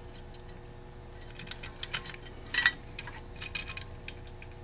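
Light metallic clicks and taps of Rochester 2G carburetor parts being handled as the accelerator pump is worked into the top, scattered and irregular, the loudest about two and a half seconds in. A faint steady hum runs underneath.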